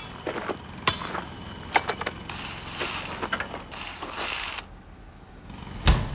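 Sharp metal clanks of a hammer striking a steel trailer coupler lock, then two short bursts of a handheld cordless power tool working on the lock, and a heavy thud near the end.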